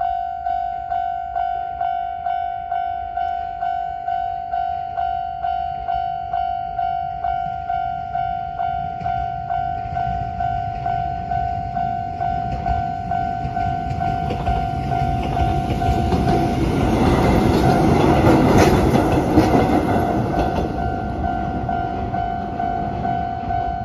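Japanese level-crossing alarm ringing in a steady rhythm of about two strikes a second, while a Konan Railway Konan Line train passes over the crossing. The train grows louder for several seconds, is loudest about three-quarters of the way through, then fades as the alarm keeps ringing.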